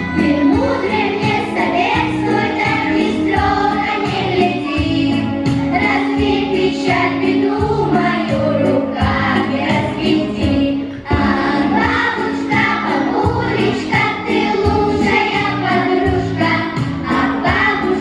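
Children's choir singing a song in unison over an instrumental accompaniment with a steady beat.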